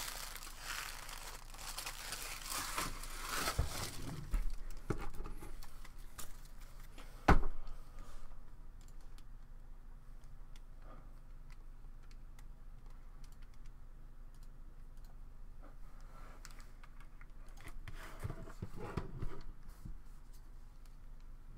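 Rustling and crinkling of packaging being handled, with one sharp knock about seven seconds in. A long stretch of quiet room tone follows, then more handling near the end as a card box is picked up.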